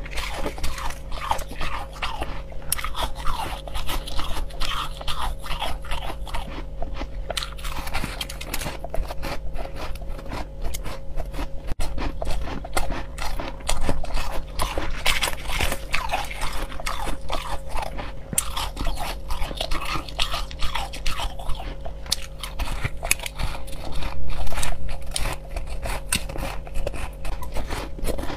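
Close crunching and chewing of crushed ice, bite after bite in dense, crackly crunches.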